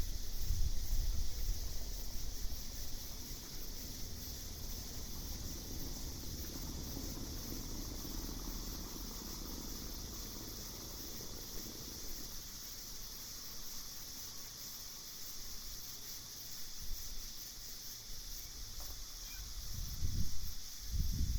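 Steady, high-pitched chorus of night insects, with a low rumble that fades over the first few seconds and swells again in gusts near the end.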